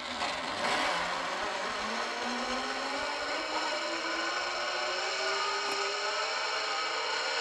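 Zip line trolley's pulley wheels running along the steel cable, a steady whir with several held pitches as the rider slides away.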